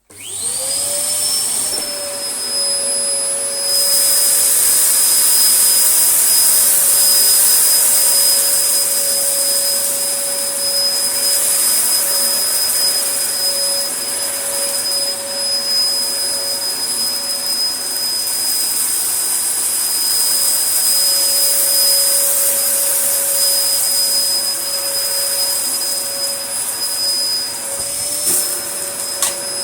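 Dyson DC01 upright vacuum cleaner switched on, its motor spinning up in a rising whine and then running steadily with a high rush of air. It runs without its filters fitted, which makes it louder. Its pitch dips briefly near the end.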